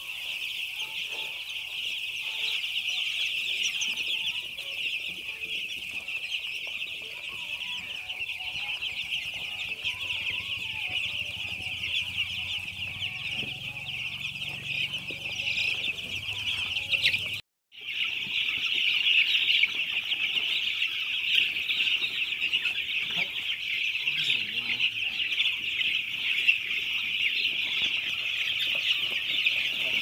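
A large flock of young broiler chicks peeping continuously, many high cheeps overlapping into one dense chorus. It cuts out for an instant a little past halfway, then carries on.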